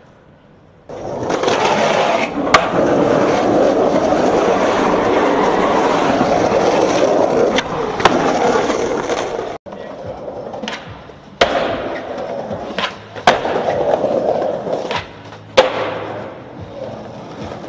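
Skateboard wheels rolling loudly over rough concrete and pavement, with sharp clacks of the board striking the ground about five times as tricks are popped and landed.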